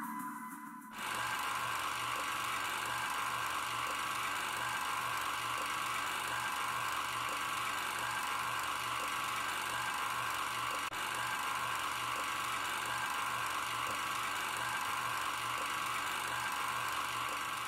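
A steady mechanical whirring hum with a low pulse repeating a couple of times a second, starting abruptly about a second in as music cuts off.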